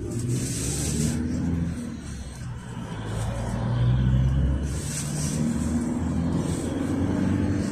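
GAZelle Next minibus with an Evotech engine driving along, heard from inside the passenger cabin: the engine note rises and falls a few times over steady road and tyre noise, and is loudest about four seconds in.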